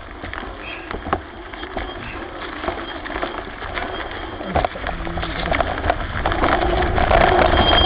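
A hiker's footsteps crunching and scuffing through dry leaf litter and brush on a steep trailless slope, with wind rumbling on the microphone; the crackling grows louder in the last couple of seconds.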